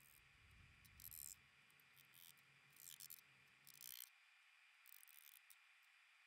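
Near silence, with about five faint, short scraping hisses spread through it and no sharp knocks.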